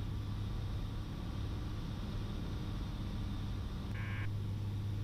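Piper Cherokee Six's Lycoming six-cylinder engine and propeller running steadily at reduced power on approach, heard inside the cabin as an even low drone. A short electronic beep sounds about four seconds in.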